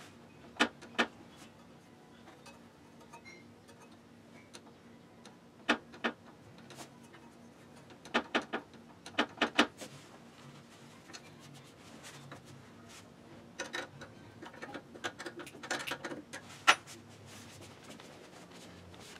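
Sharp metallic clicks and taps, several in quick pairs and clusters with the loudest near the end, from the pedal linkage rod and fittings under a sewing machine table being handled and adjusted.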